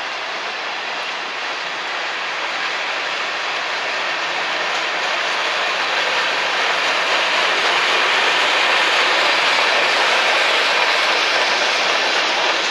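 Freight train cars rolling past on the track: a steady rumble and rattle of wheels and cars that grows slowly louder.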